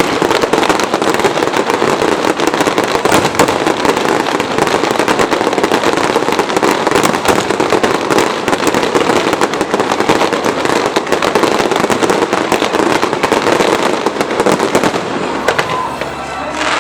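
A dense barrage of fireworks: rapid, overlapping bangs and crackling with almost no gap between them, easing off a little near the end.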